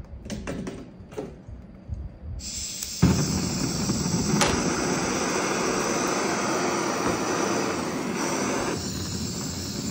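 Brass butane torch head on a gas canister: gas begins to hiss, catches suddenly about three seconds in, and then burns with a steady rushing hiss that drops somewhat in level near the end. The head has no built-in igniter, so it is lit with a separate lighter.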